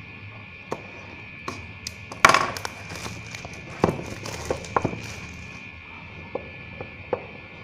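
Clear plastic shrink wrap being cut with a utility knife and peeled off a small cardboard box: a burst of crinkling and tearing film about two seconds in that trails off, with scattered light clicks and knocks of the box and knife against a desk.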